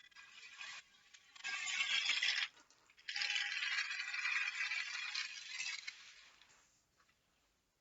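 Die-cast toy train rolled by hand along its track, the wheels and couplings rattling in two runs: a short one, then a longer one of about three seconds that fades away.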